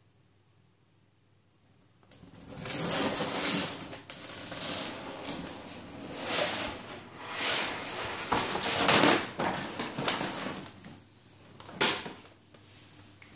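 Paper shopping bag rustling and crinkling as a cat pushes its head into it and shoves it along the floor, starting about two seconds in and coming in uneven surges. One sharp crackle near the end, as the bag tips over.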